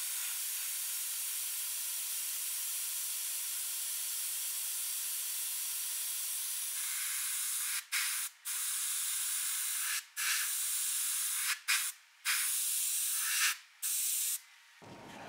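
Airbrush spraying paint: a steady hiss of air and paint that is broken by several short gaps in the second half as the trigger is let off and pressed again, then stops near the end.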